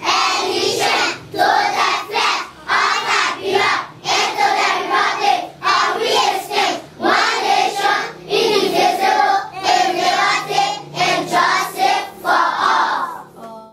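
A group of young children singing together in short phrases.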